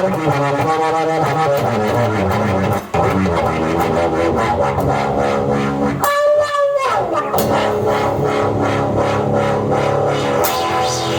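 Electronic music played through a Polivoks-type resonant analogue filter: a rhythmic sequenced line with percussion, its tone shifting as the filter is modulated. About six seconds in, a strong resonant tone glides downward as the filter sweeps.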